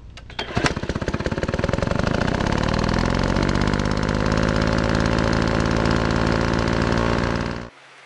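Engine running hard with a fast, even pulsing rhythm, cut off abruptly near the end and leaving faint hiss.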